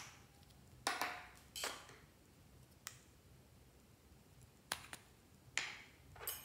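Small plastic cosmetic cases clicking and knocking as they are handled and a lid is snapped open, a scatter of sharp clicks spread over several seconds.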